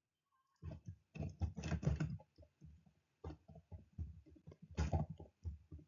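Computer keyboard typing: irregular runs of quick keystrokes that start about half a second in.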